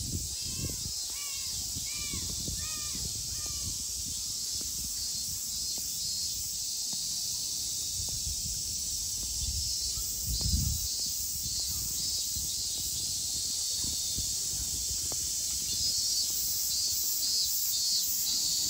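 A crow cawing, a quick run of about five or six caws in the first few seconds, over a steady high hiss of summer insects. A single low bump comes near the middle.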